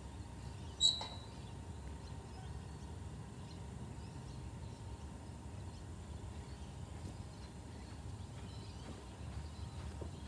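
Steady low outdoor background rumble, with one sharp, briefly ringing knock about a second in.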